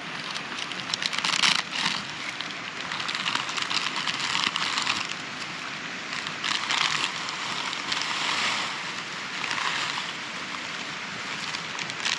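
Plastic pasta packet crinkling in the hands in repeated bursts as it is opened and the pasta tipped into a pot, over a steady rushing noise.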